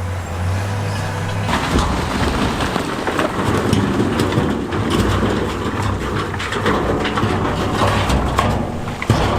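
A diesel engine hums steadily, then about a second and a half in a heavy rumble of big stones sliding and clattering against each other and the ground sets in and keeps going, full of knocks.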